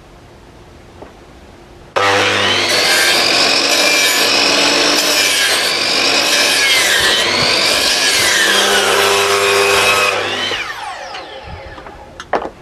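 Electric power tool switched on about two seconds in and run steadily against the work for about eight seconds, its whine wavering up and down with the pressure, then switched off and spinning down with a falling pitch. A few sharp clicks near the end.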